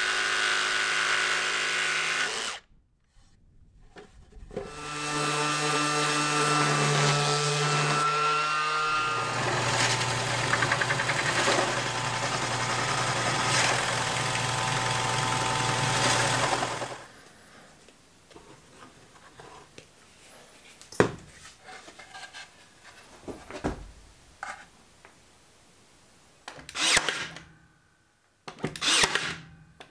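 Cordless Ryobi jigsaw cutting plywood for about two and a half seconds. After a short pause, a drill press runs steadily for about twelve seconds, boring large holes through a stacked plywood form. Near the end come a few sharp snaps and short bursts as a Ryobi cordless brad nailer fastens the form.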